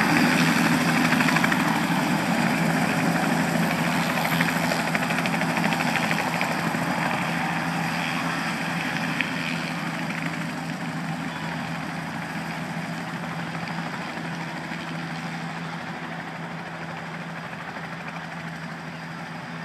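Helicopter's rotor and turbine engine running as it departs low and moves away, the sound steadily fading.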